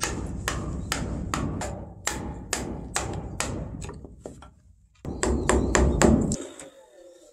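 Wooden mallet striking a chisel cutting slots into a wooden post, about two blows a second, growing fainter. About five seconds in, a second of loud crunching and scraping as the chisel is worked inside the slot to clear out the waste wood.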